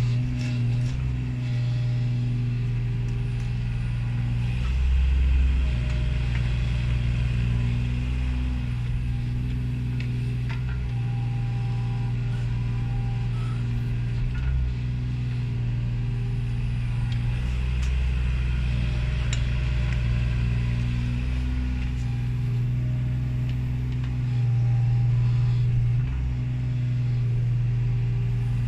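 Kubota mini excavator's diesel engine running steadily, swelling in load several times as the hydraulics work the boom and bucket through soil.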